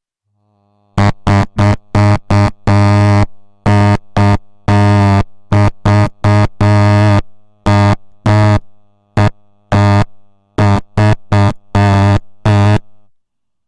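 A harsh, loud buzzing tone at one fixed low pitch, switched on and off in about two dozen short and long pulses like Morse dots and dashes. A faint steady hum at the same pitch lingers between pulses.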